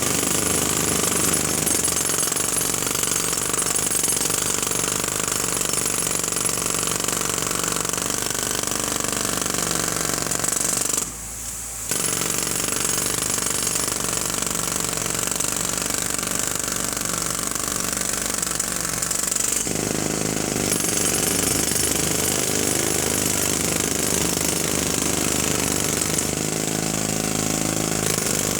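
Jackhammer hammering continuously, a loud, dense rattle, with a brief let-up about eleven seconds in.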